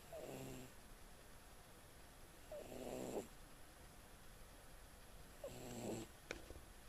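A sleeping pet snoring: three short snores, one every two and a half to three seconds. A small click follows just after the third.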